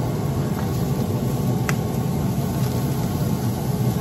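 Weber SmokeFire pellet grill running hot: a steady low drone from its fan and fire, with one short sharp click about one and a half seconds in.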